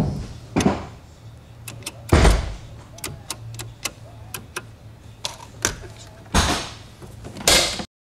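The Ford Thunderbird's lowrider hydraulic setup worked from dash-mounted toggle switches: many sharp clicks of the switches and solenoids, with several louder, half-second hits of the hydraulics as the car is lifted and dropped.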